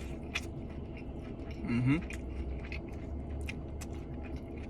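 A person chewing a mouthful of jerk chicken, with many small wet mouth clicks, and a brief hummed voice sound about two seconds in, over a steady low hum.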